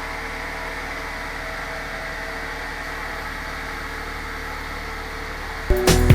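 A steady, even hum with a few faint held tones, like a machine or blower running. Near the end, background music with a heavy beat and sharp hits comes in suddenly.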